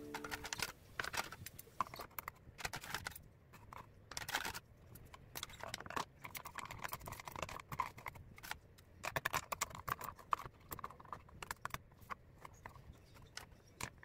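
Irregular clicks and knocks of hard objects being handled and set down, a few a second and uneven, with a faint busier stretch of small scraping taps in the middle.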